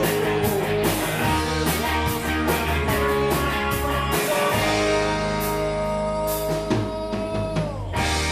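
Live rock band playing without vocals: electric guitars, bass guitar and drum kit. About halfway a long held note sounds over the band and slides down in pitch just before the end.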